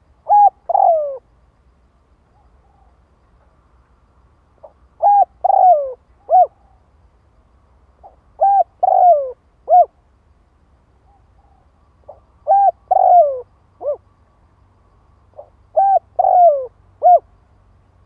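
Caged decoy spotted dove cooing: five phrases of three or four coos each, the second coo of each phrase drawn out and falling in pitch, repeated about every four seconds.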